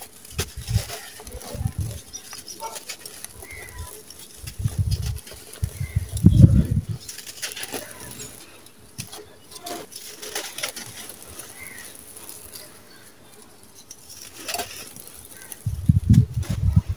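Hands crushing dry sand-cement lumps and letting gritty sand pour through the fingers: irregular crunching and trickling with dull thumps. The heaviest crunching comes about six seconds in and again near the end.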